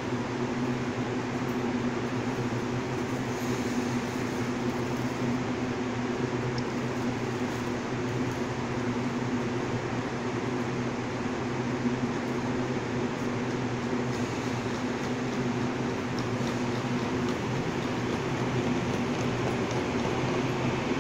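Taiwan Railways EMU800-series electric multiple unit standing at the platform, its air-conditioning and auxiliary equipment giving a steady hum with several low tones.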